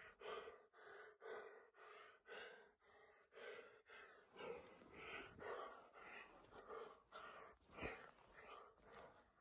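A person's quick, heavy breathing, faint and rhythmic at about two breaths a second: out of breath from crawling.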